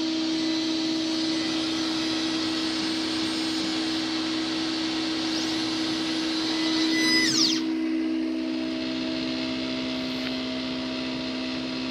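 VersaLaser laser engraver running with a steady fan-like hiss and a constant hum. About five to seven seconds in, whines rise and fall in pitch, and after them the hiss drops.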